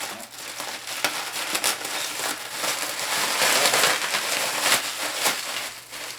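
Bubble wrap and packing tape crinkling and crackling as they are pulled off and crumpled, with scattered sharp clicks; loudest about three and a half seconds in.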